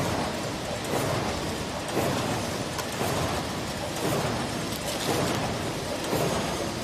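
Automatic cartoning machine running, a steady mechanical clatter with a regular beat about once a second as it cycles.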